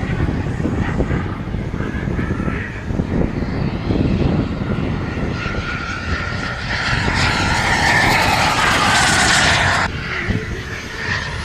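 Turbine engine of a model F-15 jet in flight: a steady hissing jet whine that swells louder between about seven and ten seconds in, then cuts off abruptly.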